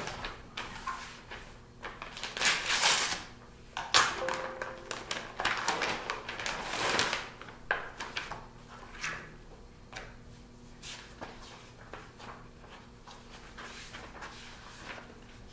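Paper handling: a padded kraft envelope and an inner envelope being opened and the bid documents pulled out and leafed through, rustling and crinkling, louder in the first half, with a sharp tap about four seconds in.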